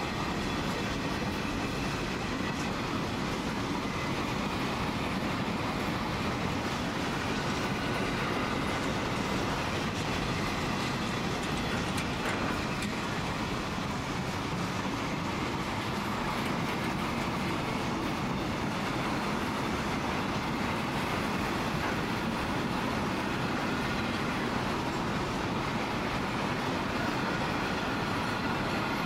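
Loaded container wagons of a broad-gauge freight train rolling past, with the steady sound of steel wheels running over the rails.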